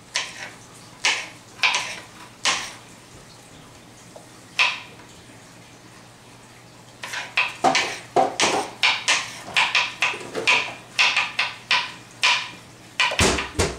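Kitchen knives chopping on plastic cutting boards while vegetables such as red bell pepper are diced: a few scattered knocks at first, then from about seven seconds in a steady run of about three chops a second.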